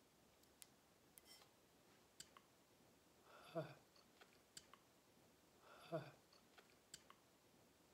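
Faint mouth sounds of a whisky taster: scattered small lip and tongue clicks, and two short low mouth noises, about three and a half and six seconds in.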